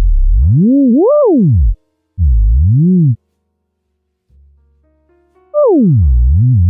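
Synthesized tone sliding smoothly up and down in pitch as a handwritten name is traced letter by letter, the pen's height setting the pitch. It swoops up to a high peak and back down, makes a short arch, goes quiet for about two seconds, then slides a long way down and rises again near the end.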